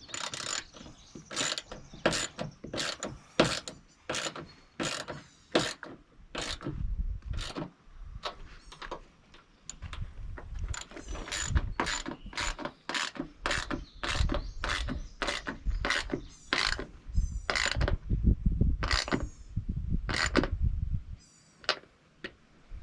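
Ratchet wrench clicking in a long run of irregular strokes as the hood latch mounting bolts on a Jeep JK are tightened down.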